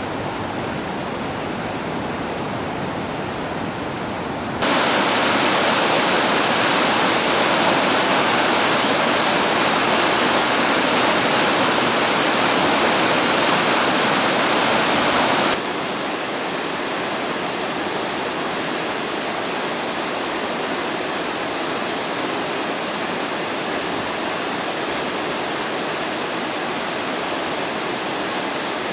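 Rushing river water, a steady noise throughout. It jumps abruptly louder about four and a half seconds in, white water tumbling close by, and drops back just as abruptly about fifteen seconds in.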